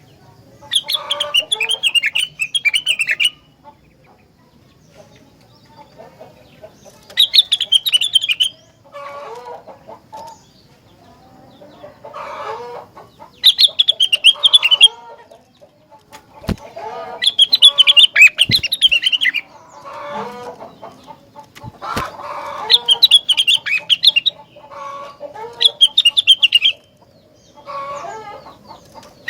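Rengganis songbird singing: loud, rapid trilling phrases recur every few seconds, with softer, lower phrases in between. A few sharp clicks fall in the middle.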